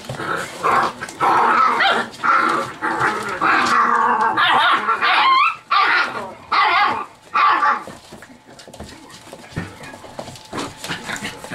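Chocolate Labrador puppies, seven weeks old, barking and yipping in a loud, continuous tangle for about eight seconds, with higher, shorter cries in the middle, then only light scuffling. It is rough play, not real fighting.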